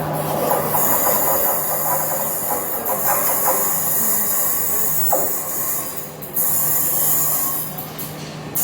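Train standing at a station platform: a loud hiss over a steady low hum from the train. The hiss drops away about six seconds in.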